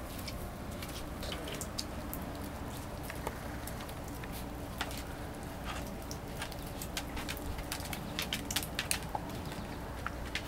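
Puppies moving about and eating at a plastic food dish on wet concrete: scattered soft clicks and ticks of small paws, claws and food, irregular throughout, over a steady low background rumble.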